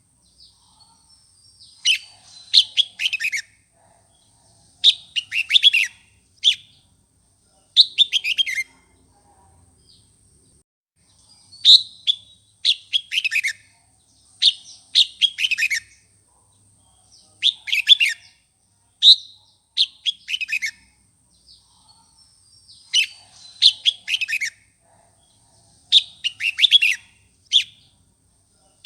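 Red-whiskered bulbul singing: short bursts of quick, clear whistled notes sweeping downward, repeated every two to three seconds. This is the bird's vigorous competitive song.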